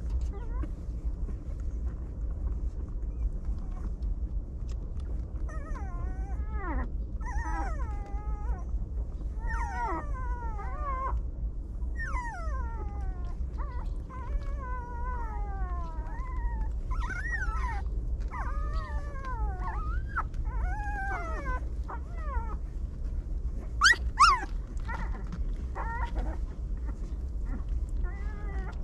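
Puppies whining and crying: a long run of high, wavering calls that slide down in pitch, starting about five seconds in, with a short sharp squeal near the end. A steady low rumble runs underneath.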